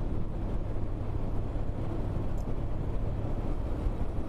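Steady low rumble of a motorcycle underway, engine and wind noise picked up by a helmet-mounted action camera.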